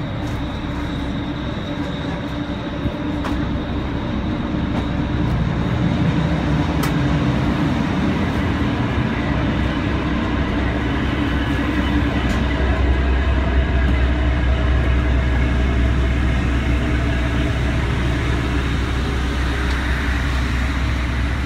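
Steady low drone of a passenger ferry's engines. It grows louder about four to six seconds in, as the listener moves from the cabin onto the open upper deck.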